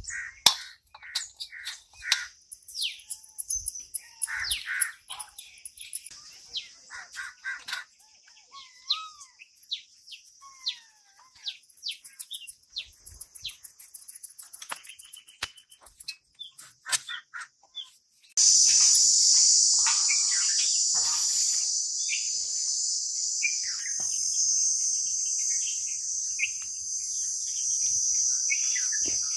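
Birds chirping and calling, with short whistled glides and scattered small clicks. About two-thirds of the way through, a loud, steady, high-pitched insect drone starts abruptly and carries on.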